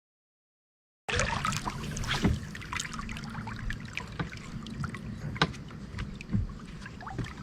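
Dead silence for about a second, then sounds aboard a small fishing boat: a steady low hum with many small knocks and clicks of gear being handled.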